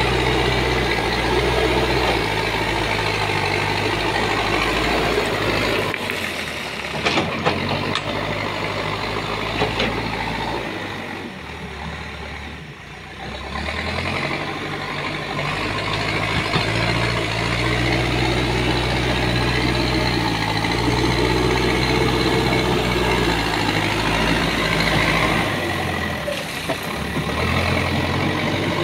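Manitou backhoe loader's diesel engine working as the front bucket pushes earth and gravel, its revs stepping up and down. There are a few sharp knocks about a quarter of the way in, and a brief easing to low revs near the middle.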